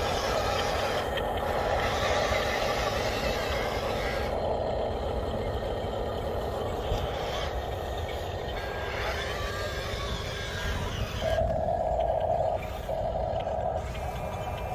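Radio-controlled model Mercedes-Benz Arocs dump truck driving loaded over sand: a steady motor and gear noise. Two long electronic beeps come near the end.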